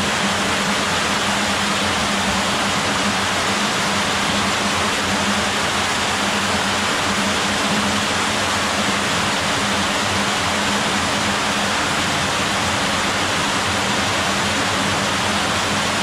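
Sewer water cascading down a stepped channel inside a brick sewer tunnel: a loud, steady rushing that does not change.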